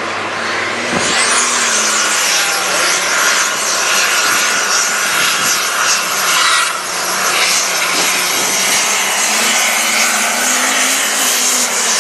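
Light super stock pulling tractor's turbocharged diesel engine running at full throttle under load as it pulls a weight-transfer sled, with a high turbo whine that rises sharply about a second in and then holds.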